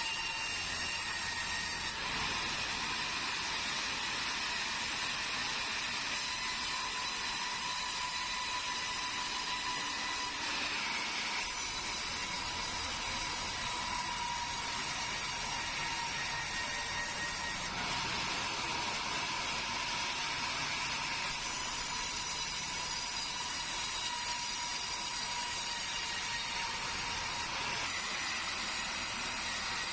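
Sawmill saw running steadily through keruing wood: a constant high-pitched whine over a hiss, unbroken throughout.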